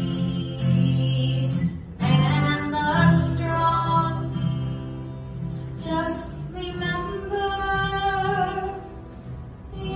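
A woman singing with acoustic guitar accompaniment, in phrases with long held notes.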